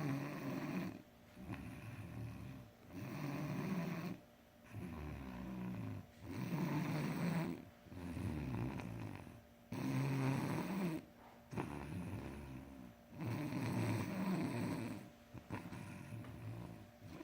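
A boy snoring in his sleep: about ten snores, each a second or so long, in a steady rhythm with short pauses between breaths.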